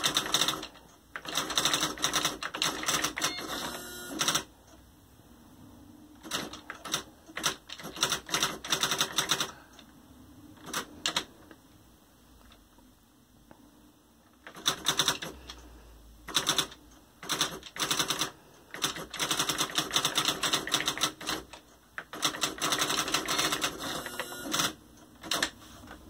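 Xerox 6010 Memorywriter electronic daisywheel typewriter printing as it is typed on: runs of rapid, fast clattering strikes that start and stop as the typing goes, with short pauses between the runs.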